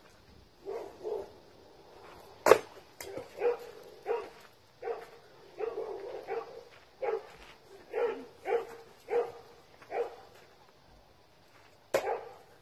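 A dog barking over and over, roughly twice a second. Two sharp knocks cut through it, the loudest about two and a half seconds in and another near the end: a thrown tomahawk striking a tree trunk.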